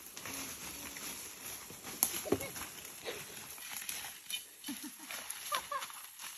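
Dry leaves and twigs crunching and rustling under footsteps and dragged material on a littered slope, with a few short pitched calls about two seconds in and again near the end.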